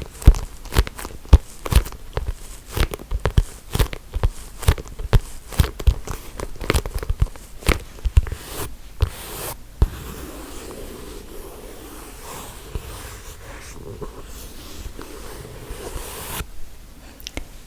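ASMR triggers on small objects: a run of quick, irregular taps and clicks for about ten seconds, then a steady scratchy rubbing noise that stops shortly before the end.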